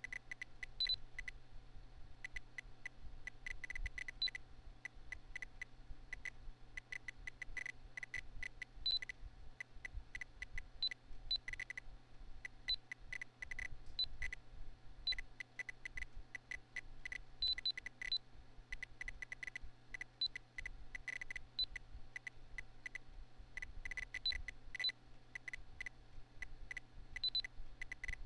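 PC internal speaker beeping out the earthquake program's events: short single-tone beeps in an irregular stream, several a second, each marking a magnitude 6.0–6.9 quake, with a higher beep now and then for a magnitude 7.0–8.4 quake. Under the beeps is the steady low hum of the computer fan.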